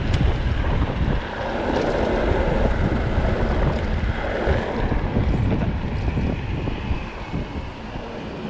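Wind blowing across the microphone: a loud, low, rushing noise.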